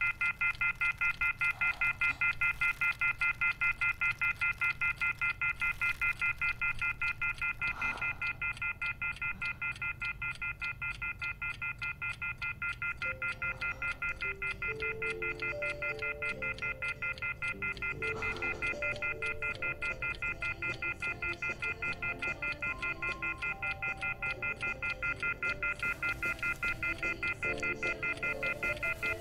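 Telephone off-hook warning tone (the 'howler') from a wall phone's handset left off the hook: a shrill chord of high tones pulsing on and off several times a second. From about halfway, quiet low music comes in underneath.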